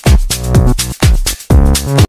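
Electronic dance music with a steady, driving beat.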